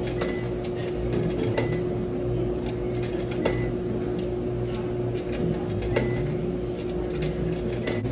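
Steady machine hum of a laundromat, with one held tone, under scattered clicks and rustles of clothes being loaded into a washing machine and a plastic laundry basket being handled.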